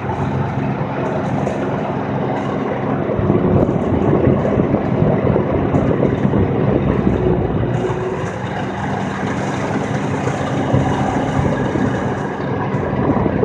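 A vehicle on the move: a steady low engine hum under road and wind noise. It gets louder and rougher from about three seconds in to about eight seconds.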